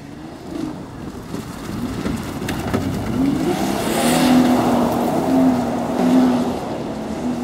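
Holden Commodore's engine revving hard as the rear-wheel-drive car slides and spins its wheels on loose dirt, the pitch rising and falling. It gets louder as the car passes close about four seconds in, with a hiss of dirt thrown from the tyres.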